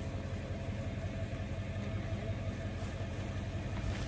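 A vehicle engine idling steadily, a low continuous hum.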